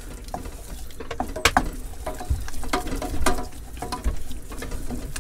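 Wooden spoon scraping and knocking around a stainless steel saucepan, stirring a thick roux that is being cooked out before the milk goes in. The scrapes and light knocks come irregularly, some with a faint metallic ring.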